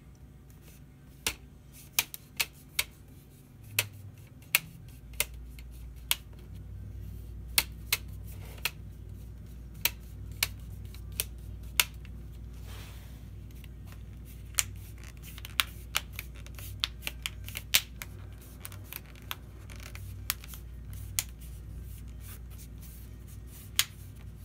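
Plastic screen bezel of an HP Chromebook 14a being pressed onto the lid casing, its clips snapping into place in a long string of sharp, irregular clicks.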